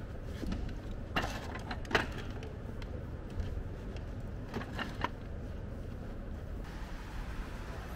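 Steady restaurant and street background noise, broken by a few short clinks or knocks. The loudest comes about two seconds in and a close pair about five seconds in.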